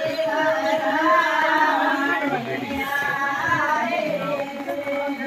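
Group of women singing a Himachali folk song together, several voices with long held, wavering notes.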